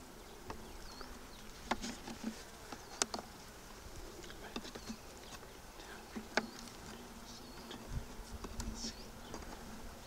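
Honeybees buzzing faintly and steadily around an opened beehive, with a few light clicks scattered through.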